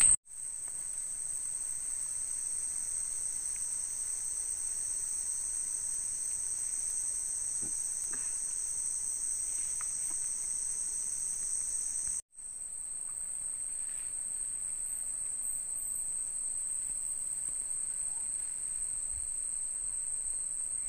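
Night insects, crickets, chirring in a steady, unbroken high-pitched drone that cuts out for an instant about twelve seconds in.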